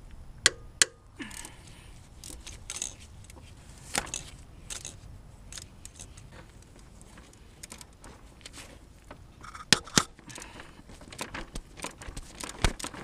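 Sharp metallic clinks and taps of a hand tool against metal in an engine bay, as a socket wrench is worked onto a bolt. Two pairs of louder clinks stand out, one near the start and one about ten seconds in, with softer taps and rustling between.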